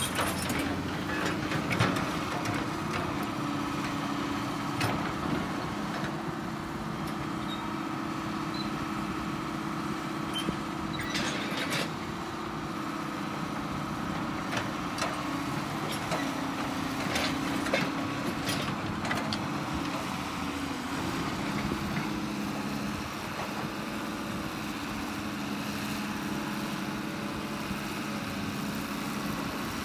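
Hydraulic excavator's diesel engine running steadily under load while the machine pushes itself along with its boom and bucket to climb onto a truck. The engine tone dips and rises a little as the hydraulics work, with a few sharp knocks in the middle.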